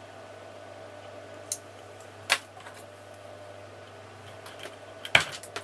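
A few sharp clicks from small hand tools and wire being handled at a workbench over a steady low hum. The loudest click comes about two seconds in, and there is a short cluster of clicks near the end.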